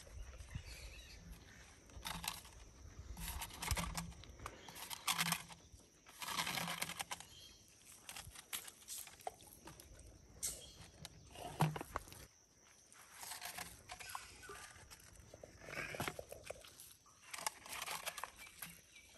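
Quiet, irregular rustling, plastic crinkling and light splashing as a plastic bottle fish trap is handled and pushed into shallow water among water plants.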